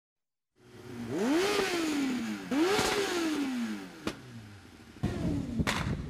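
An engine revved twice, its pitch climbing quickly and then sinking back slowly each time. A sharp click follows, then a sharp crack near the end.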